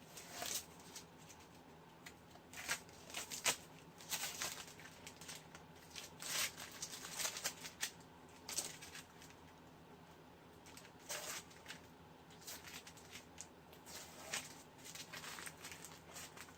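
Masking tape being peeled off a freshly painted part and crumpled: irregular short rips and crinkles, some close together, spread throughout.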